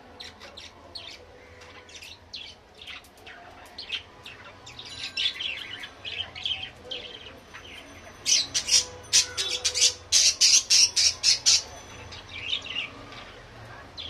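Several budgerigars chirping and chattering: scattered short high calls, then a dense run of loud, sharp chirps about eight seconds in that lasts a few seconds.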